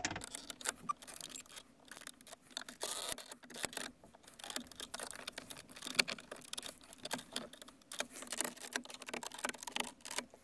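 A screwdriver prying at a car's plastic dashboard trim panel: the blade scraping on the plastic with many irregular small clicks and creaks, one sharper click about halfway through.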